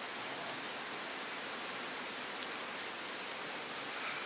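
Steady rain falling, an even hiss with a few single drops ticking now and then.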